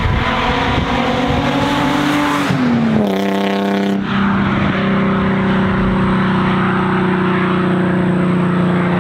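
Infiniti G35's 3.5-litre V6 running through a straight-piped exhaust with no catalytic converters or resonators, a loud steady exhaust note. About two and a half seconds in the pitch falls, then holds steady at the lower pitch.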